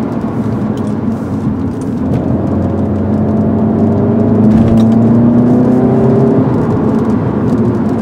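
Volkswagen Golf GTI (Mk7) 2.0-litre turbocharged four-cylinder engine heard from inside the cabin while driving, under a haze of road noise. Its pitch climbs slowly from about two seconds in as the car accelerates, then drops back a little after six seconds.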